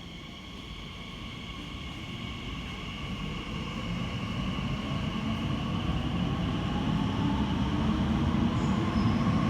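Elizabeth line train pulling into the underground platform, its rumble growing steadily louder, with a high electric whine that falls slightly in pitch as it slows.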